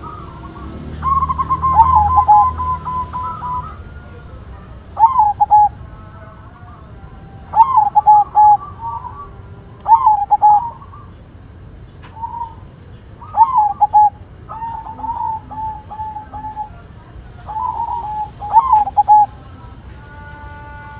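Zebra dove (perkutut) singing: about eight phrases of quick cooing notes, one every two seconds or so, the first the longest.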